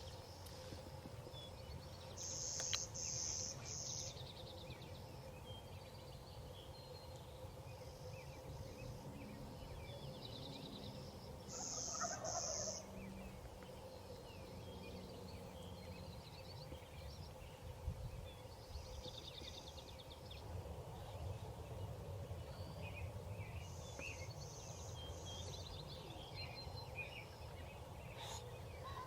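Wild turkey gobbling, about four short gobbles spread through, with small birds chirping faintly in between.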